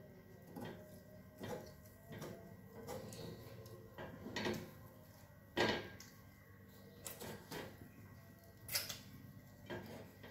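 Light, irregular knocks and clicks of kitchen utensils being handled while a pancake is made, about one a second, with a faint steady hum underneath.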